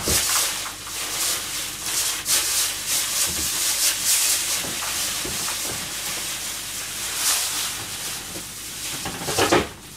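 Steady hissing rush of water with a few light knocks over it.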